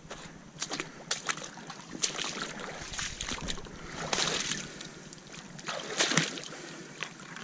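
Shallow rock-pool water splashing and sloshing as someone wades and reaches in by hand, in a string of short splashes with a louder splash about six seconds in.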